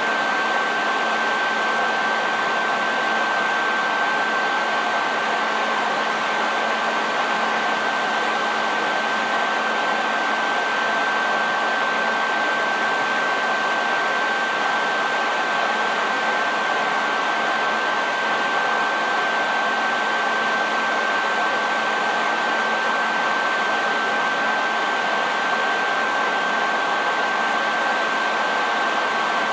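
Hair dryer running continuously at a steady speed: an even rushing noise of air with a constant high motor whine.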